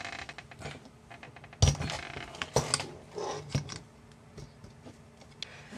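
Small clicks and taps of parts being handled on a carbon-fibre quadcopter frame as spacer sleeves and the antenna holder are fitted onto the rear standoffs, with two sharper knocks about a second and a half and two and a half seconds in.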